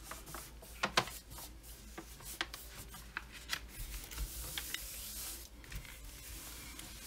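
Hands rubbing and pressing the protective covering sheet flat over a diamond painting canvas: soft rustling of the sheet with scattered small crinkles and ticks, the sharpest about a second in.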